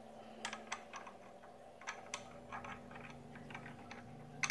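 Faint, irregular clicks and small taps of a telescope mount's counterweight shaft and its end safety stop being handled and screwed on, with one sharper click near the end.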